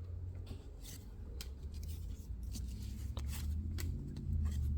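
2022 Topps Update Series baseball cards being handled and flipped through one by one: scattered light ticks and slides of card stock over a steady low hum.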